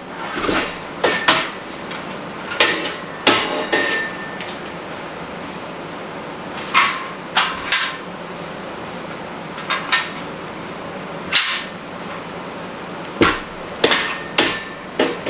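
Steel garage-shelving uprights and beams clanking and knocking together as they are handled and fitted. About a dozen irregular sharp metal knocks, a few ringing briefly.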